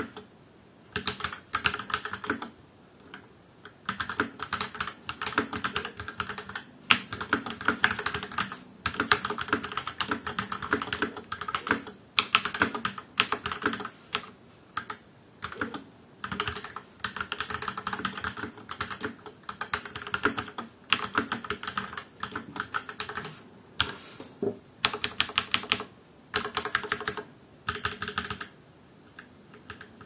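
Typing on an Akko 3087 V2 Horizon mechanical keyboard with linear Akko Pink switches and PBT keycaps: quick runs of key clacks broken by short pauses.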